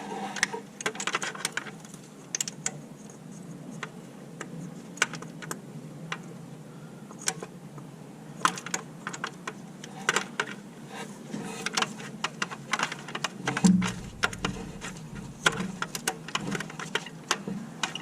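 Socket ratchet clicking in short, irregular bursts as the crankshaft position sensor's bolt is tightened, with a dull metallic knock about three-quarters of the way through.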